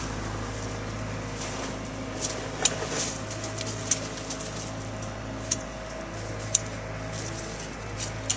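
A steady machine hum with several sharp clicks or snaps over it.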